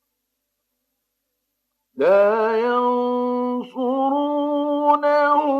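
Silence for about two seconds, then a male Quran reciter's voice in melodic tajweed chant, holding long drawn-out notes with wavering ornaments and a brief break for breath.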